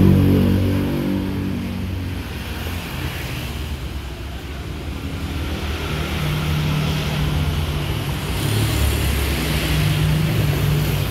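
Road traffic from the street: motorbike and car engines with a steady low hum and road noise.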